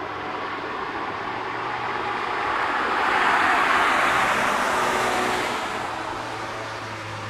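A hatchback car passes close by on the track. Its engine and tyre noise swells to a peak about three to four seconds in, then fades as it drives away.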